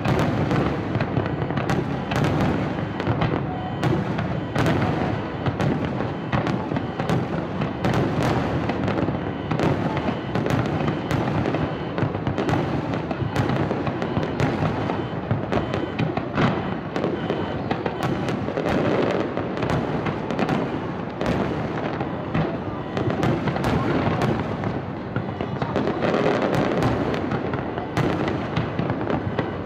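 Aerial fireworks display: many shells bursting in quick, overlapping succession, a dense, unbroken barrage of bangs.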